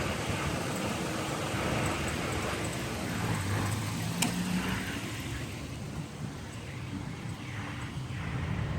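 Truck engine idling steadily with the heater on, the engine temperature climbing toward running hot. A single sharp click about four seconds in.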